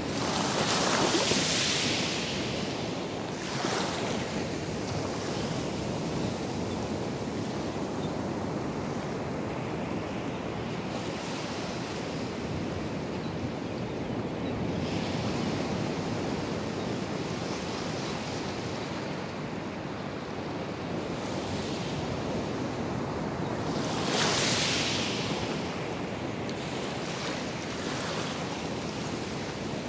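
Atlantic surf breaking and washing up the sand in a steady rush, with a fresh wash of foam swelling in every few seconds; the loudest wash comes late.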